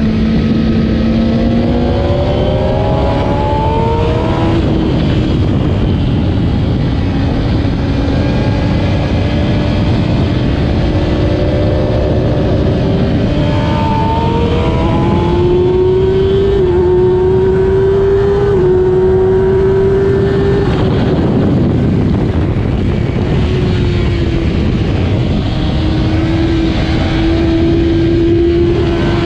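2008 Kawasaki ZX-10R's inline-four engine at racing revs, the pitch climbing through the gears with a step at each shift, then falling away as it slows.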